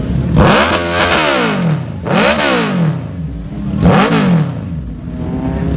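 Suzuki Hayabusa's inline-four engine revved three times through its exhaust, each blip a quick rise and fall in pitch, the first the longest, with the engine running lower between them.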